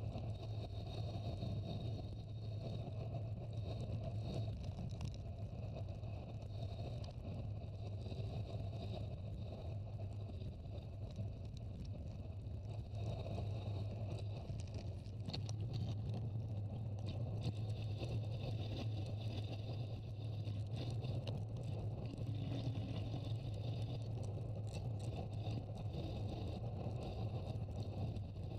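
Steady rush of wind and road noise on a camera moving fast down a paved mountain road, with a constant low rumble.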